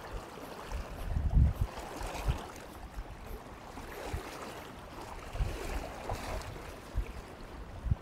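Steady rush of a swollen, fast-flowing river running high after rain, with a few low thumps on the microphone, the loudest about a second and a half in.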